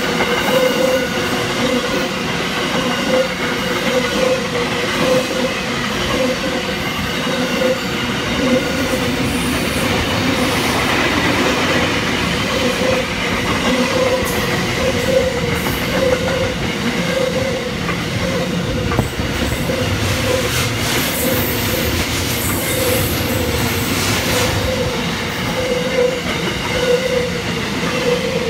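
Container freight train's flat wagons rolling past close by, a steady rumble of steel wheels on the rails with a ringing tone that swells about once a second.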